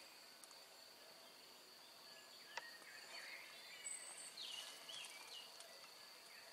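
Quiet woodland ambience: a few faint bird chirps around the middle, over a steady high insect-like drone, with one light click about two and a half seconds in.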